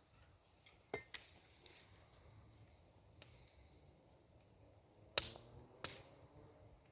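Wood fire burning outdoors, giving off a few sharp, irregular crackles and pops, the loudest just past five seconds in.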